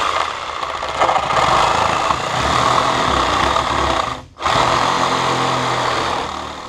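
Cordless reciprocating saw cutting through an old rusted steel two-stroke motorcycle exhaust pipe: a steady rasp of blade on metal, with a short break about four seconds in before the cut resumes.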